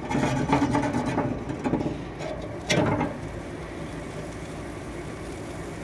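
Steady hiss of a ribeye searing on a charcoal grill over hot mesquite coals. Handling clatter comes in the first couple of seconds, and a single sharp clank of metal on the grill grate a little under three seconds in.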